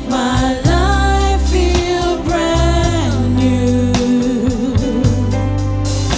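Gospel worship song: a voice sings long, gliding held notes over steady bass and keyboard accompaniment.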